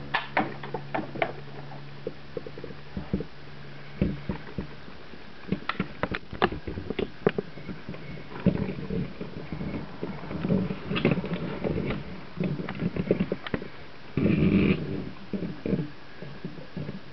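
Handling noise from a die-cast model car and its display base: irregular clicks and knocks with short rubbing scrapes, and a louder scrape about fourteen seconds in.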